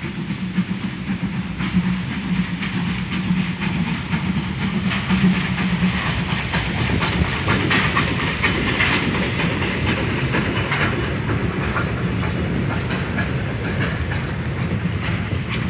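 Steam locomotive TKh05-353 passing with a train of vintage coaches. A low steady hum comes first as it draws near, then its steam hissing and chuffing, loudest about eight seconds in as the engine goes by, giving way to the rolling clatter of the coaches' wheels over the rails.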